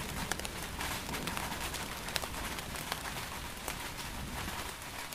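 Steady rainfall, with many individual drops ticking close by over an even hiss and a weakening low rumble of thunder underneath.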